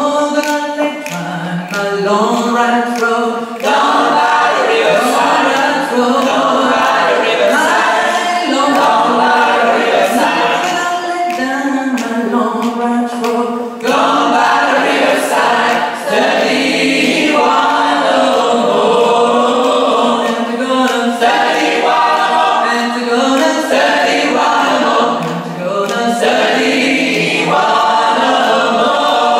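Gospel choir of mixed voices singing a cappella in harmony.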